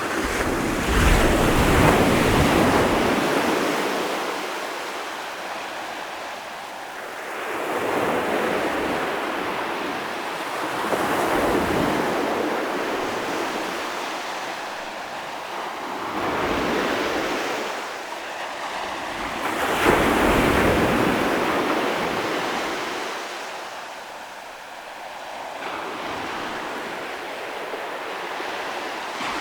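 Ocean waves breaking and washing up the shore, the surf swelling and fading about five times, every three to six seconds.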